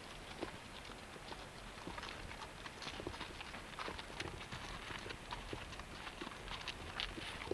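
Horses' hooves clopping: a steady run of many irregular hoof strikes.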